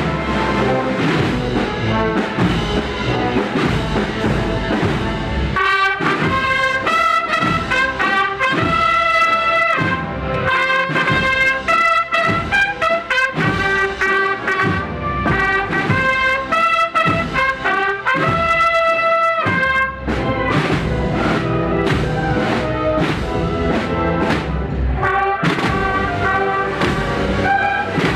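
Procession band of brass and drums playing a processional march. Heavy drumming for the first few seconds, then a brass melody stands out over sparser drum strokes, and the full drumming returns about twenty seconds in.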